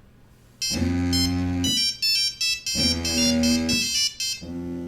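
Mobile phone ringtone starting about half a second in: a synthesized melody of held, buzzy low chords under quick high bell-like notes, played in a few phrases, with the last one quieter.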